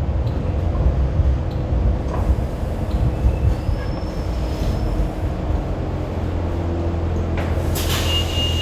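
Kawasaki-built Hong Kong Light Rail car running on the track, a steady rumble of wheels and running gear heard from inside. Near the end there is a short hiss, then a steady high-pitched wheel squeal begins.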